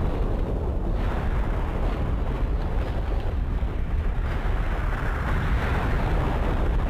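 Nuclear explosion sound effect: a long, continuous rumbling blast, heaviest in the deep bass, with no single sharp bang inside it.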